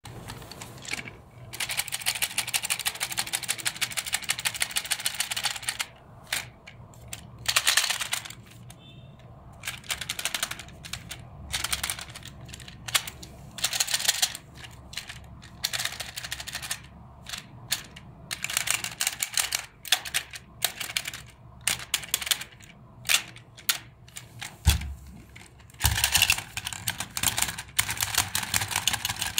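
Plastic toy boxers rattling and clicking rapidly as they are worked against each other, in runs of a few seconds with short pauses between. Two dull knocks come near the end.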